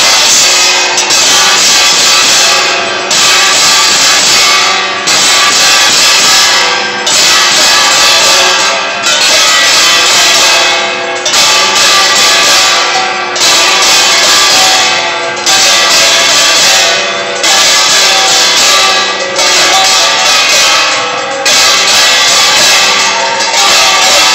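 Temple bells ringing loudly and without pause during the lamp-waving aarti, a dense metallic clangour that swells and fades in a regular cycle about every two seconds.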